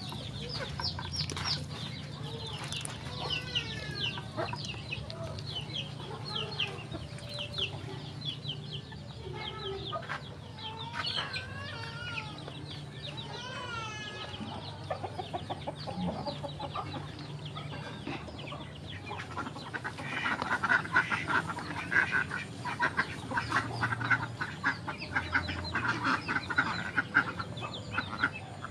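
Ducklings and chickens calling: many short high peeps, then a louder stretch of rapid, dense calls near the end.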